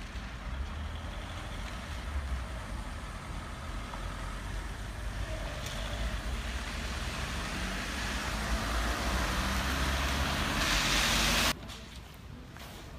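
Road traffic on a rain-wet road: a steady hiss of tyres over a low rumble, swelling as a vehicle comes close. It cuts off suddenly about eleven and a half seconds in, leaving a quieter outdoor ambience.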